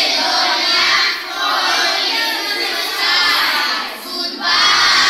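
A class of young children singing together in unison, loud and in several short phrases with brief breaks between them.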